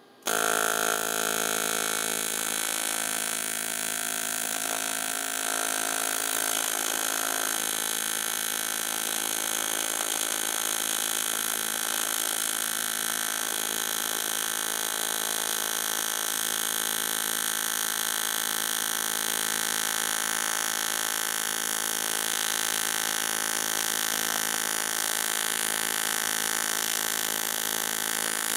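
AC TIG welding arc on aluminum, set to about 120 Hz, striking suddenly about a quarter second in and then buzzing steadily as the weld is laid into a crack in an aluminum bicycle swing arm.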